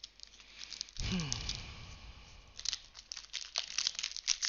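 Foil wrapper of a trading card booster pack crinkling and being torn open, with many small sharp crackles, as the pack is worked open with some struggle.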